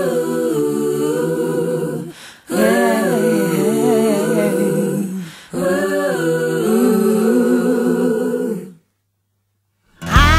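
A cappella vocal music: several voices sing held chords in three phrases, breaking off about nine seconds in.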